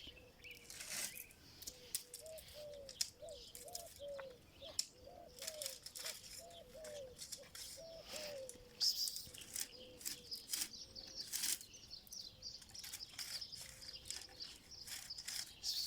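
Birds calling: a run of about a dozen short, repeated low notes, with scattered sharp clicks and faint high chirping.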